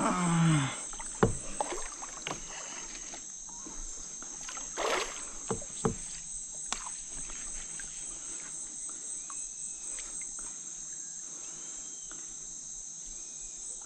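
Steady high-pitched insect chorus, crickets or cicadas, with scattered knocks from the kayak and fishing gear and a short rush of noise about five seconds in.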